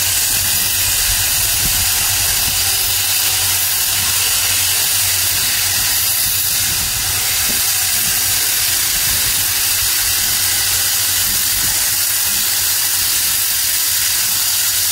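Loud, steady hiss of steam from NSW C35-class steam locomotive 3526, blowing from its open cylinder drain cocks as it moves slowly.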